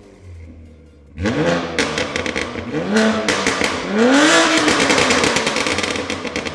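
BMW S58 twin-turbo inline-six exhaust, through a titanium equal-length catback with catless downpipes, revving hard: after a quieter first second it opens up sharply and climbs and falls in pitch three times, with sharp crackles over the top.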